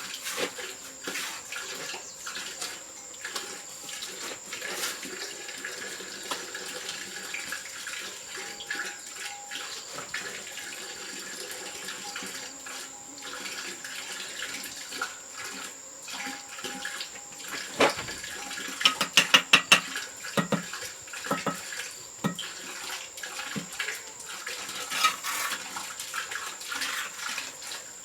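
Water splashing and sloshing with scattered small knocks and clicks, and a quick run of loud sharp knocks about nineteen seconds in.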